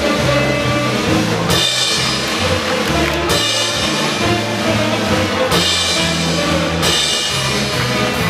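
Circus band music: a drum kit beating over a stepping bass line, with four loud crashes through it.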